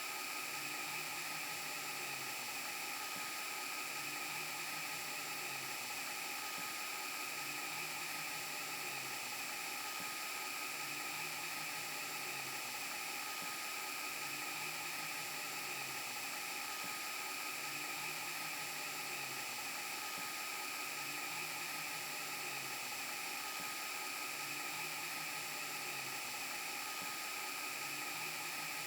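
VHS rewind glitch sound effect, a steady static hiss laced with a few high whining tones. A low hum pulses about every two seconds.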